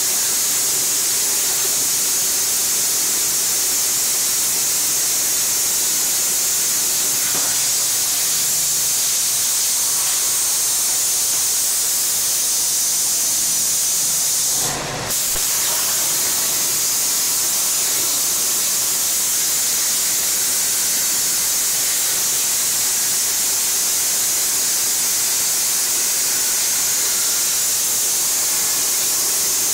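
A 65 A plasma cutter's torch cutting 8 mm plate: a loud, steady hiss of the arc and air jet. It breaks off briefly about halfway through, then carries on.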